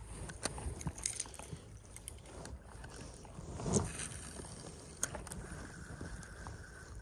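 Angler casting a spinning rod on a windy bank: wind on the microphone and handling clicks, a whoosh of arm and rod swinging through the cast a little before the four-second mark, a sharp click about five seconds in, then a faint steady whine as the spinning reel is cranked.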